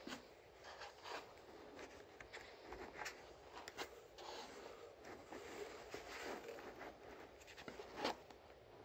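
Tonearm being worked out of a cut foam packing insert: quiet scratchy rubbing and scraping of foam and cardboard, with scattered small handling clicks, the sharpest about eight seconds in.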